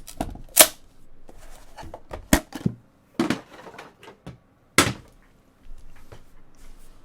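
Trading-card box being handled and opened on a table: a string of sharp knocks and taps with short scrapes and rustles between them, the loudest about half a second in and again near the middle.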